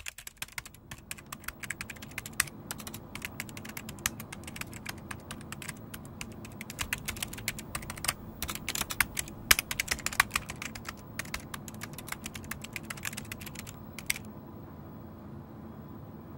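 Typing on a computer keyboard: a fast, dense run of key clicks that stops about two seconds before the end. A steady low hum lies underneath.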